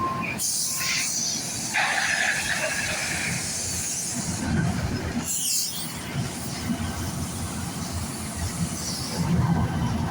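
Heavy road-construction machinery running with a low rumble, broken by bursts of hissing and a brief squeal near the middle.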